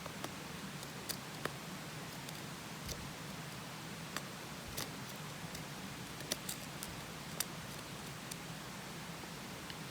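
A small wood fire crackling: irregular sharp pops and snaps, about ten of them, over a steady low hiss.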